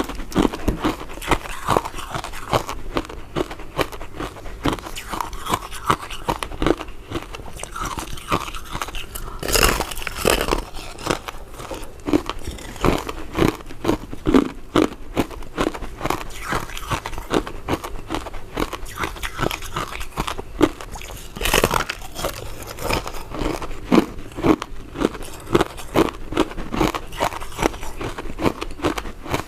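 Chewing of soft, chewy powder-coated mint sweets: a steady run of quick, sticky mouth clicks and smacks, broken twice by a louder bite.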